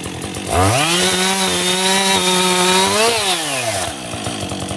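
Husqvarna 562 two-stroke chainsaw revving from idle to full throttle about half a second in and cutting through a log at a steady high pitch. It drops back to idle near the end once the cut is through.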